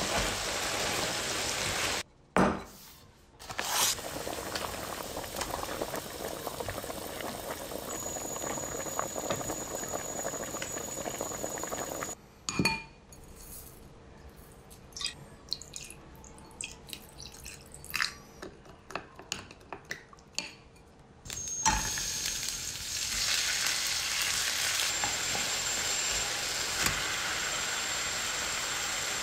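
Kitchen cooking sounds in several short cuts: food frying with a steady sizzle, and a quieter stretch in the middle with scattered clinks of utensils and dishes. The sizzle comes back louder near the end.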